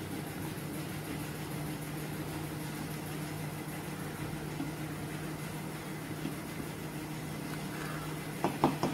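Steady low hum from a kitchen appliance or motor. Near the end a wooden spatula knocks a few times against an aluminium pressure cooker while stirring and mashing potatoes in the stew.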